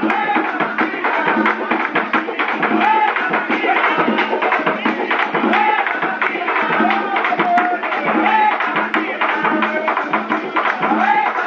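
Live Afro-Venezuelan tambor music: a steady, dense pattern of hand drums with a singer's voice over the top.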